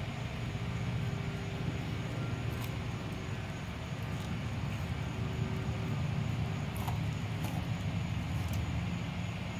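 A steady low mechanical hum, like a motor running, with a few faint crunching clicks as a dog gnaws a piece of raw chicken.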